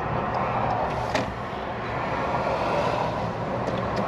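Car engine and road noise heard from inside the cabin as the car pulls off the road into a parking lot, with a single click about a second in.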